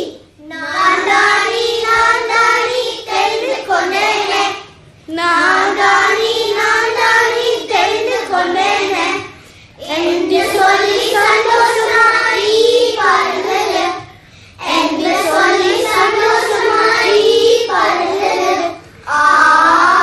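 Young children singing a song in Tamil, in sung phrases of about four to five seconds with brief breaks between them.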